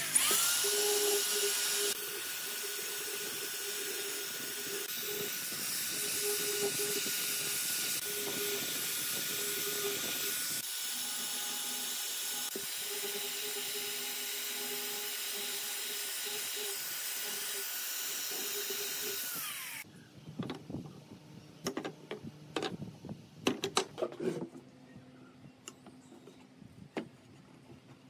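Angle grinder fitted with a sanding drum, sanding the curved notches in a pine board: a steady high motor whine over a hiss. It spins up at the start and winds down about 20 seconds in. Scattered light knocks and clicks of wood being handled follow.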